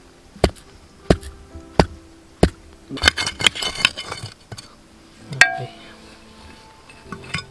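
A stone knocking a bamboo stake down into the soil, four sharp strikes about two-thirds of a second apart, then a knife scraping and cutting a groove through the dirt for about a second, followed by a single sharp knock. Faint background music with steady tones underneath.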